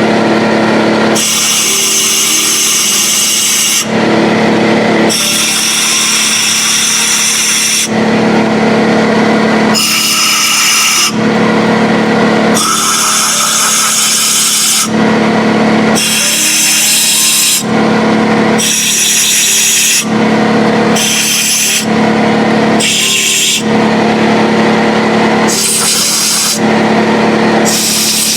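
Compressed-air blow gun fed by a DeWalt 6-gallon air compressor, hissing in repeated blasts of a second or two that clear coolant and dirt from cylinder head bolt holes. Between the blasts a steady mechanical hum carries on.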